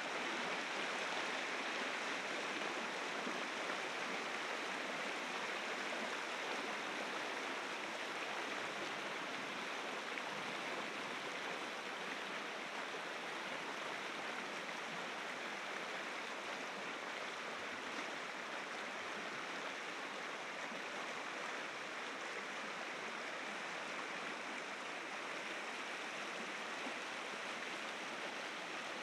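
Rushing water of river rapids, a steady noise that grows slightly fainter over the stretch.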